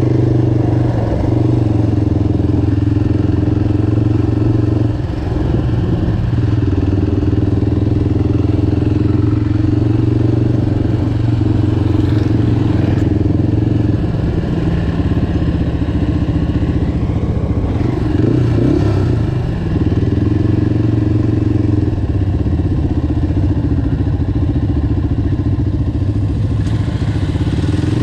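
Off-road vehicle engine running steadily under throttle. It eases off briefly about five seconds in and again near twenty seconds.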